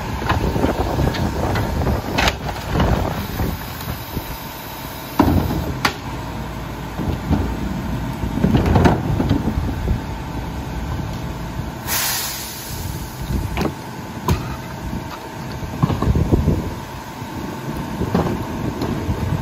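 Rear-loader garbage truck's diesel engine idling while plastic wheeled carts are tipped and knocked against the rear hopper, giving several sharp clunks. About twelve seconds in there is a short hiss of released air.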